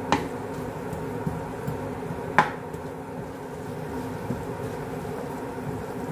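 Wooden spoon stirring garlic in oil in a nonstick wok, knocking against the pan twice: once right at the start and louder about two and a half seconds in, over a steady low hum.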